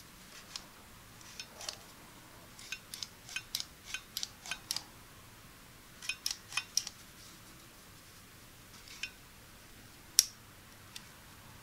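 Gonicc pet nail clipper worked by hand, its metal blades snapping shut as the spring-loaded handles are squeezed: sharp metallic clicks, a quick run of about ten, then a shorter run of four. One louder single click comes near the end as the safety lock slider is worked.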